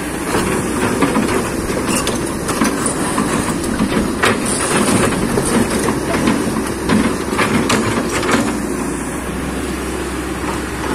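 Kobelco excavator working with its diesel engine running steadily under a dense, irregular run of metal clanks and scraping against stone and mud, which eases off near the end.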